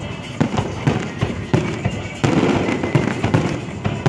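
Aerial firework shells bursting in quick, overlapping booms and crackles, with a louder burst a little over two seconds in.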